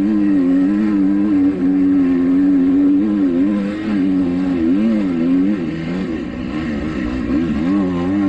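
A 2021 Kawasaki KX250X dirt bike's four-stroke single-cylinder engine running hard under the rider's throttle, heard on the bike. Its note holds steady at first, then rises and falls repeatedly with the throttle from about three seconds in. It eases off around six to seven seconds and picks back up near the end.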